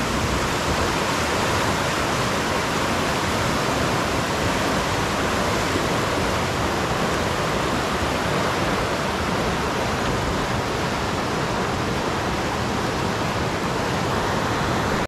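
Water rushing through river rapids: a steady, loud rush that cuts off suddenly at the end.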